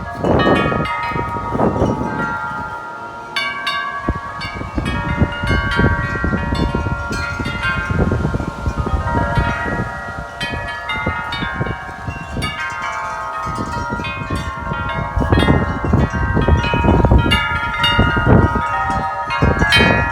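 Large tubular wind chimes ringing in strong gusty wind, the tubes struck over and over so that their tones overlap continuously. Wind rumbles on the microphone in surges, heaviest near the start and in the last few seconds as gusts hit.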